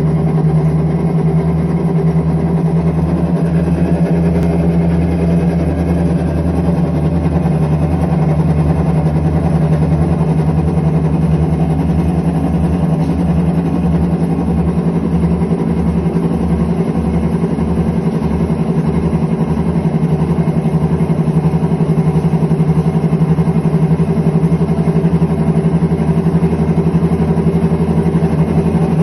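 IPSO commercial washing machine running with a steady hum over a fast, fluttering low rumble: the sound of bad drum bearings.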